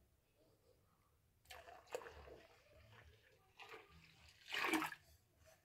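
Liquid yeast poured from a glass flask into wort in a stainless steel fermenter: faint glugging and splashing that starts about a second and a half in, loudest just before the end.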